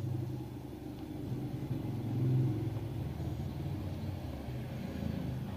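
A motor vehicle's engine running with a low rumble, swelling about two seconds in and then easing back to a steady hum.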